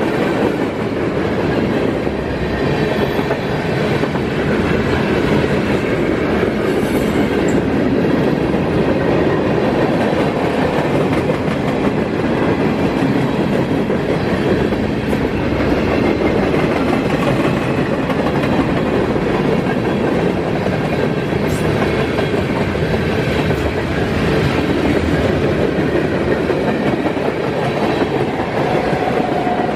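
Mixed freight train of tank cars, lumber flatcars and boxcars rolling past close by: steady rumble of steel wheels on the rails, with no let-up.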